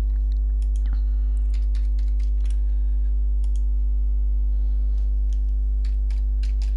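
Typing on a computer keyboard: scattered keystrokes in short runs, over a steady low electrical hum.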